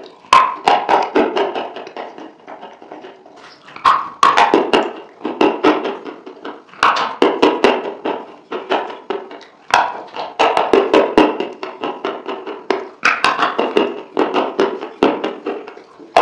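Close-miked mouth sounds of eating a thick white dip scooped up with the fingers: wet smacking and chewing clicks, coming in bursts about every three seconds.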